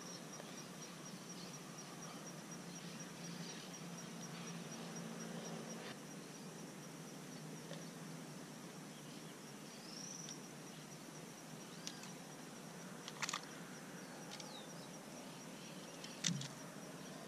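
Outdoor ambience: a steady, faint, high-pitched insect trill pulsing throughout, with a few short bird chirps. A low hum comes in for a few seconds, and two sharp clicks or taps sound in the last few seconds.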